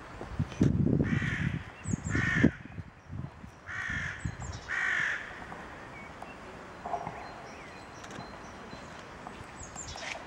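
A crow cawing four times, harsh calls in two pairs about a second apart. A loud low rumble runs under the first two calls.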